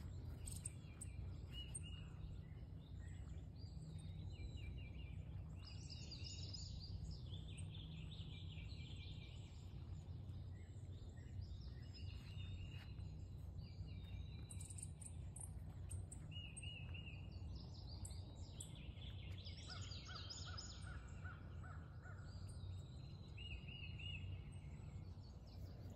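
Songbirds singing in the open, many short repeated chirps and trills on and off, over a steady low rumble.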